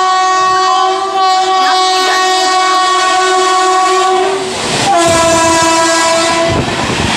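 Horn of a WAP7 electric locomotive running at about 90 km/h: one long steady blast, then after a short gap a second, slightly lower blast. As the locomotive passes, the rush and clatter of its coaches going by at speed follows.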